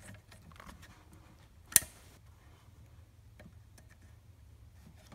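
A single sharp click just under two seconds in, among faint small ticks of handling: a throttle cable end snapping off its brittle plastic tab at the throttle lever as it is pushed free by hand.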